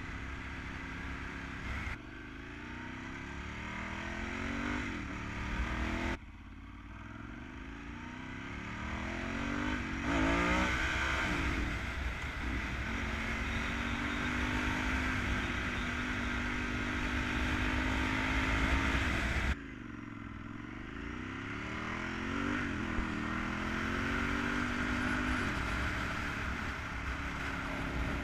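Ducati 916's V-twin engine under way, the revs climbing and falling sharply at each of three upshifts, then holding steady at a cruise for a stretch in the middle before pulling up through the revs again.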